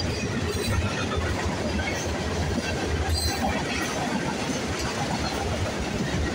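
Freight cars of a mixed freight train rolling past close by: a steady rumble and rattle of steel wheels on the rails.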